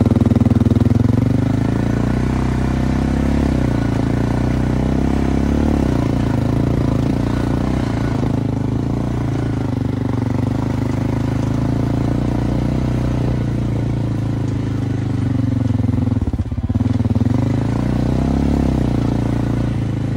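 Farm quad bike engine running as it drives across the paddock at a steady note, easing off briefly near the end and then picking up again.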